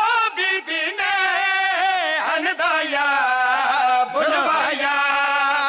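Men chanting a Punjabi devotional qasida in long, wavering held notes, several voices together.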